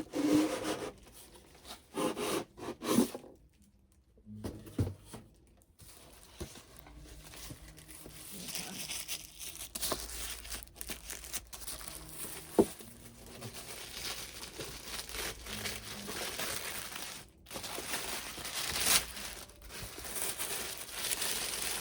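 A Mattel doll box being handled and opened: packaging tearing and crinkling, with scattered sharp clicks and two louder snaps, about twelve and nineteen seconds in.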